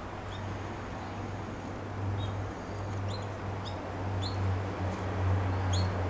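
Canaries giving a handful of short, high chirps, spaced irregularly, over a steady low hum.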